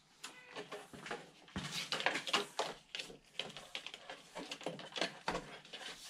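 The outer plastic jacket of 6/2 electrical cable being peeled back by hand: irregular rustling and crackling with many small clicks.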